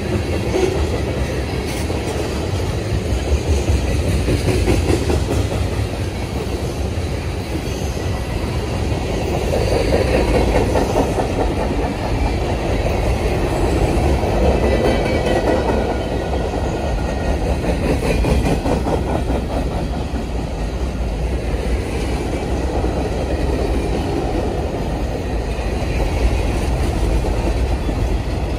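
Freight cars of a passing Norfolk Southern train rolling by, their steel wheels running steadily on the rails with a clickety-clack over the rail joints.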